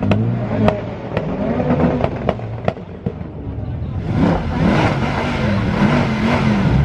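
Sports car exhaust popping and banging on the overrun, about six sharp cracks in the first three seconds over the engine note. From about four seconds in the engine is revved hard, its pitch swinging up and down.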